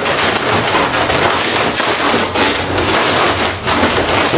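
Inflated latex twisting balloons squeaking and crackling, a dense run of rapid rubbing clicks, as bubbles are squeezed together and one bubble is pulled through the middle of the others.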